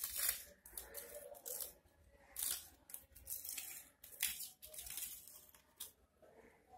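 Paper rustling and crinkling as hands handle and press together pieces of red craft paper, in a series of short, irregular scratchy rustles.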